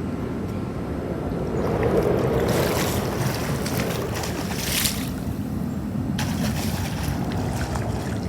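Pool water splashing and sloshing in stretches as someone moves through it, over a steady low rumble of wind on the microphone.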